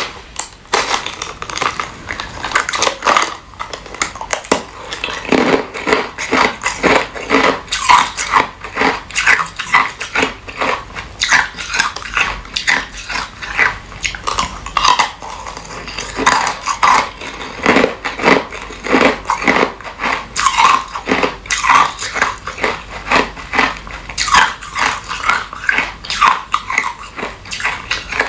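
Close-up crunching of clear ice being bitten and chewed, a rapid, irregular run of sharp cracks and crunches throughout. Ice chunks knock against a cut-down plastic bottle as they are picked out.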